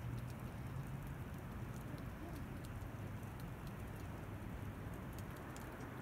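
Faint, steady outdoor background noise, mostly a low rumble, with a few faint scattered ticks.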